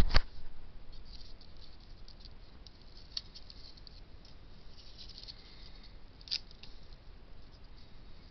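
Close handling noise of a small black plastic plant pot and the leafy stem in it: two sharp knocks right at the start, then faint crackling and a few scattered clicks.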